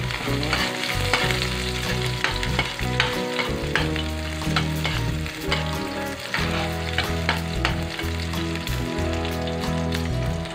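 Onion, garlic and ginger sizzling in hot oil in a metal pan, stirred with a spatula that scrapes and knocks against the pan many times.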